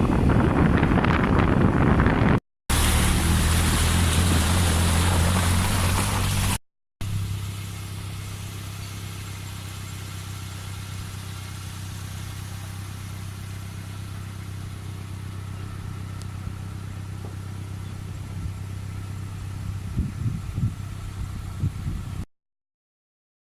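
Wind rushing over the microphone, then, after cuts, a car engine running steadily with an even low hum. The sound stops abruptly about 22 seconds in.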